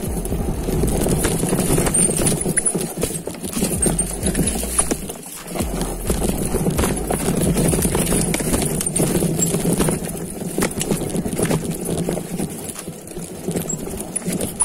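Mountain bike riding downhill over a rough trail: tyres rumbling and the bike rattling with many small knocks, briefly easing about five seconds in.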